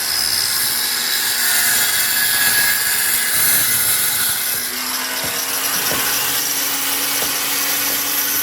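Angle grinder cutting into a wall, a steady high grinding hiss. A little past halfway a low steady motor hum comes in under it, with a few short knocks.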